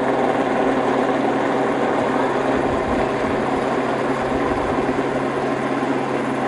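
Steady, unbroken engine drone with a low hum beneath it.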